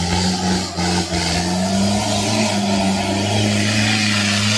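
Off-road buggy's engine revving hard under load as the buggy climbs out of a mud pit. The revs are held high, with the pitch stepping up slightly about a second in and again about halfway through.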